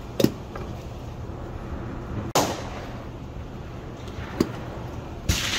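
Two gunshots on an outdoor range, about three seconds apart, each followed by a short echo, with a couple of sharp clicks in between.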